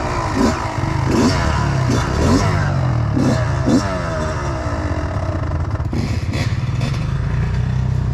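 Kawasaki KX85 two-stroke dirt bike engine running, revving up and down repeatedly through the first half and then running steadier and lower. Sharp knocks and clatter come from the bike over rough ground.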